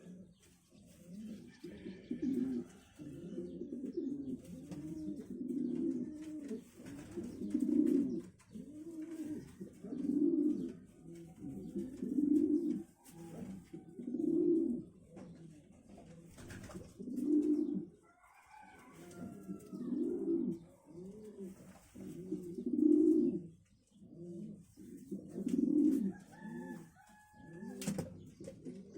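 Pigeons cooing in repeated low, rolling phrases every couple of seconds, with a few higher calls from another bird near the middle and again near the end.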